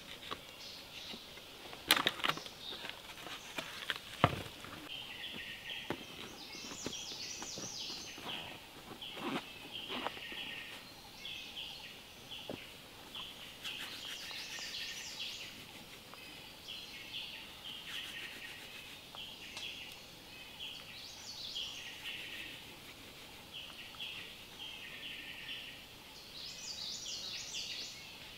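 Forest birds chirping over and over with short repeated calls, over a faint ambient hiss. A few sharp knocks of dead wooden logs being handled and set down, loudest about two and four seconds in.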